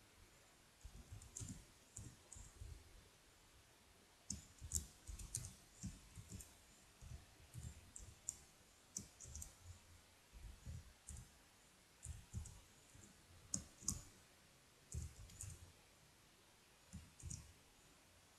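Faint, irregular clicking of computer keyboard keys being typed, in quick clusters separated by short pauses.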